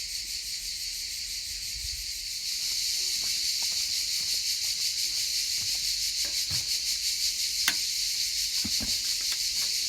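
Steady high-pitched insect chorus, a dense even buzzing-chirring that grows louder about two and a half seconds in. A few faint knocks and one sharp click sound over it.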